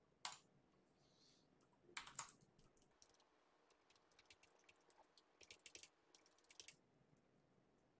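Faint keystrokes on a computer keyboard, typed in short bursts: a couple of taps near the start, a quick cluster about two seconds in, and a longer run of taps from about five to six and a half seconds in.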